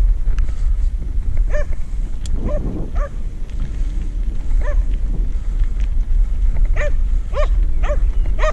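Border collie barking in short, sharp barks, about one a second and coming faster near the end, over a steady low rumble of wind on the microphone.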